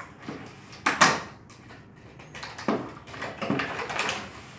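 Cardboard box packaging being handled while a toy robot dog is worked free of its insert: a sharp knock about a second in, then scraping and rustling.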